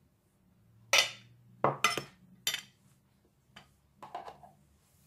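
A metal spoon clinking and tapping against a white plate and a glass bowl as grated cheese is scraped off into the bowl: four sharp clinks from about one second in, then a few softer knocks near the end.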